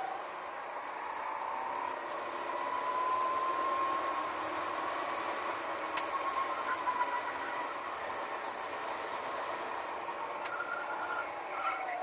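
Go-kart driving on a track, heard from on board: a steady whine that climbs in pitch as the kart speeds up and drops again as it slows, over an even rushing noise, with a sharp tick about six seconds in.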